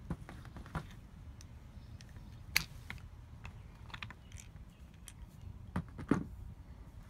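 Scattered clicks and knocks of a Manfrotto 410 geared head's quick-release clamp and plate being handled and taken apart, with a sharp click about two and a half seconds in. The two loudest knocks come near the end, as the plate is set down on the table.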